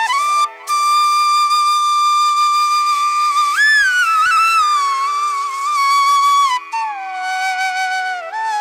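Background music: a solo flute playing long held notes that slide between pitches, over a steady drone.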